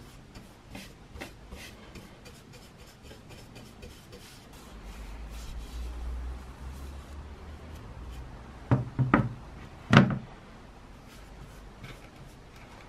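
Soft, rapid bristle strokes of a paintbrush putting finish on a wooden hatchet handle. About nine to ten seconds in come three sharp knocks, the loudest sounds, as the hatchet is set back down on the wooden workbench.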